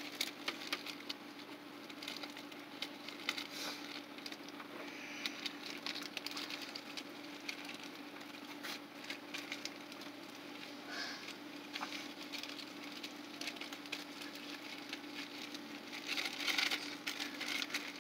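Plastic zip-top bag crinkling and rustling in hands as a folded wet paper napkin is worked inside it, with irregular small crackles and a louder burst of crinkling near the end.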